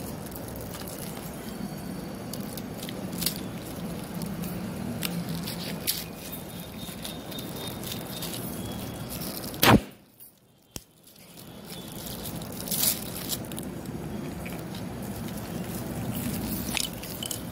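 Shiny metallic gift wrap crinkling and rustling as it is handled and torn open, with scattered crackles. About ten seconds in there is one sharp click, followed by a second or so of near silence.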